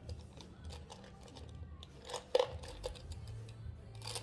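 Light clicks and small knocks of makeup brushes and products being handled, with one sharper click about halfway through, over a low steady hum.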